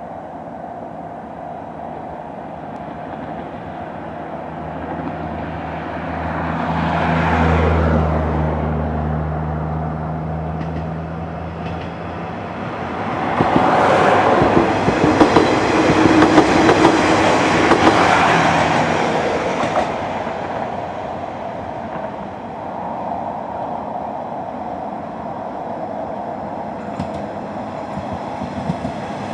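Diesel railcars passing through a station. A low engine drone swells about six seconds in, then loud wheel-on-rail noise with sharp clicks runs for several seconds and fades away; near the end another train is approaching.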